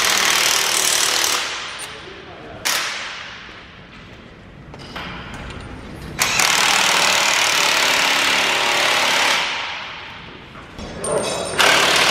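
Impact wrench running in repeated bursts on a planter's row unit hardware, each starting suddenly. The longest burst lasts about three seconds in the middle, with shorter ones at the start, about a quarter of the way in and near the end.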